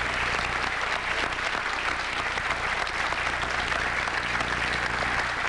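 Studio audience applauding steadily, over a constant low electrical buzz in the recording.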